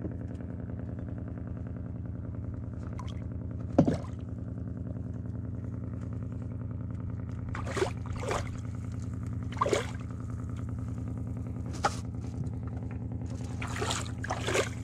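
Small boat's engine idling steadily, with a few short knocks and clatters on top, the loudest about four seconds in.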